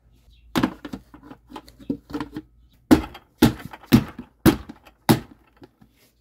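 Blue plastic lid being pressed and snapped down onto a water-filled plastic bucket by hand: sharp plastic knocks, a few scattered at first, then a run of strong ones about twice a second as the rim is pushed home around the edge.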